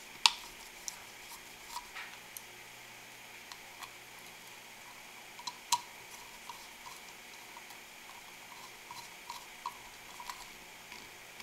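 Small clicks and taps of a screwdriver, wires and a wire nut against a sheet-metal transformer box as a ground wire is fastened to its ground lug: a sharp click just after the start, another near the middle, then a run of faint ticks.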